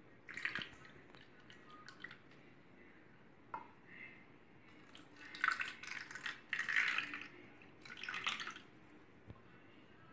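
Thin mango syrup poured from a steel bowl into a plastic ice-cream mould, trickling and splashing into the cells in four short spells: one about half a second in and three between about five and eight and a half seconds. A few light clicks fall between them.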